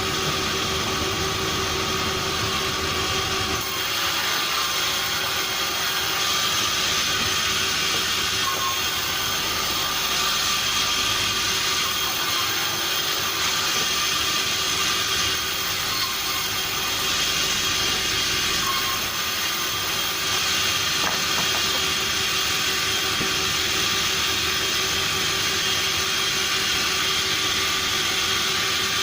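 Sawmill machinery running steadily, a constant mechanical hum with a strong hiss over it and no break.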